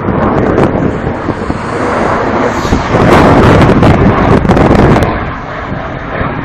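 Loud aircraft flying past, swelling to its loudest about three to five seconds in and then easing off.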